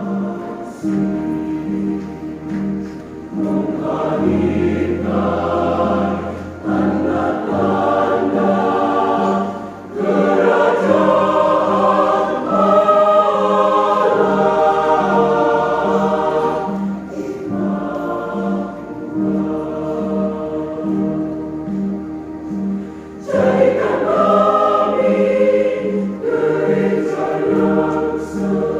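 Church choir singing in parts over an accompaniment with a steady beat and held bass notes, the singing swelling louder about ten seconds in and again near the end.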